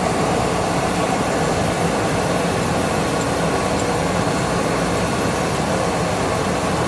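Metal lathe running steadily while a tool bit set at about 30 degrees takes a light 15-thousandths cut, beveling the edge of a small bolt head.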